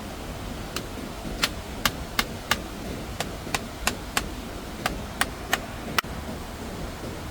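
A series of about a dozen sharp, short knocks, unevenly spaced at two to three a second, over a steady noise.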